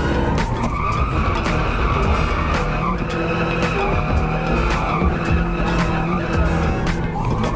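Nissan S13 drift car's engine running hard at high revs while its tyres skid through a drift, heard from inside the cabin; the revs climb again near the end. Music plays underneath.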